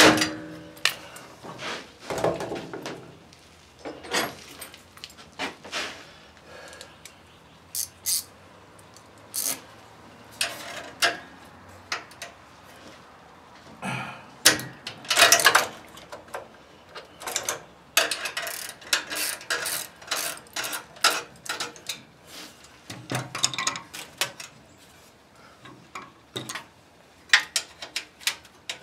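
Irregular clicks, clinks and scrapes of hand tools and small metal parts as a carburetor and its throttle linkage are worked loose from a mini bike's small engine, with a few louder rattles in the middle.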